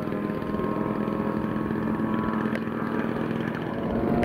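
Engines of radio-controlled scale Junkers Ju 87 Stuka models flying overhead: a steady propeller drone that swells slightly near the end.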